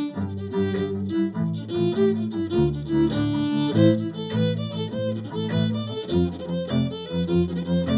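Fiddle playing a jig, a quick run of bowed notes over a lower, longer-held bass part underneath.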